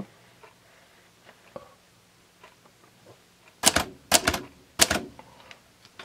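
1962 Hermes 3000 manual portable typewriter typing: about three and a half seconds in comes a quick run of four or five sharp keystrokes as the typebars strike the platen, with a few faint ticks from the machine before them.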